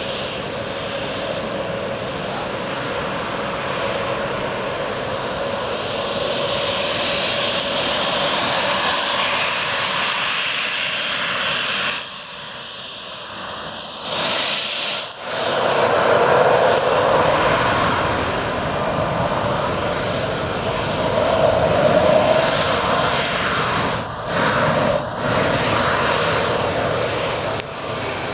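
Embraer E-190 jet's twin GE CF34 turbofan engines running as the airliner rolls along the runway: a steady jet rush with a held whine, louder in the second half, broken by several abrupt drops in level.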